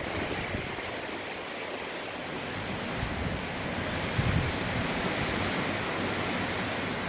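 Hurricane wind rushing steadily, with low rumbles of gusts buffeting the microphone, strongest about four seconds in.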